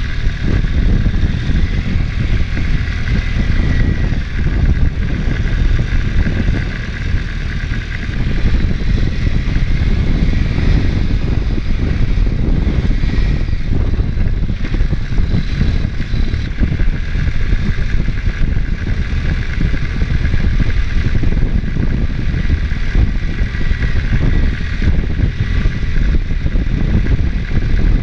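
ATV engine running while the machine is ridden along a trail, with a brief easing of the engine about seven seconds in.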